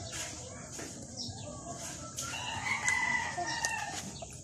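A rooster crowing once: one long call starting about halfway through and fading out near the end.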